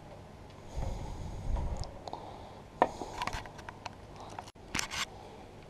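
Handling noises at a workbench while an e-bike battery pack is worked on: a brief low rumble about a second in, then two clusters of sharp clicks and scrapes.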